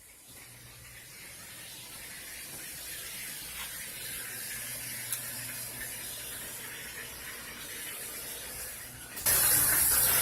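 Shower running: a steady hiss of spraying water, muffled at first and slowly growing louder. It jumps abruptly to full, close loudness about nine seconds in.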